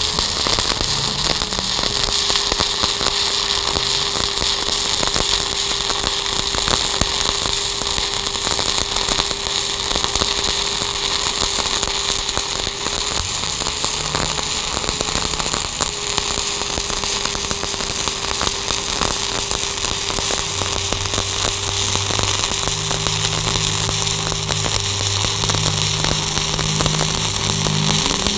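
Stick-welding arc crackling steadily as a 1/8-inch 7018 electrode runs a fill pass at 135 amps on half-inch steel plate, over a steady hum. A deeper hum joins for the last several seconds.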